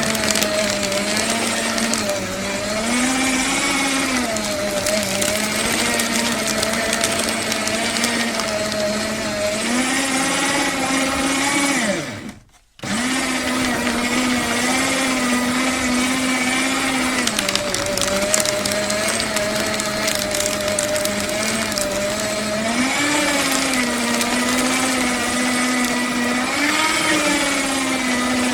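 Electric paper shredder motor running steadily as it shreds paper, its hum shifting up and down in pitch. About halfway through it winds down, stops for under a second, then starts again.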